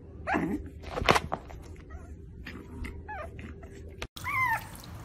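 Pug puppy giving short, high whining cries: one falls steeply in pitch about half a second in and a fainter one comes around three seconds, with a sharp click just after a second. A brief high cry follows near the end.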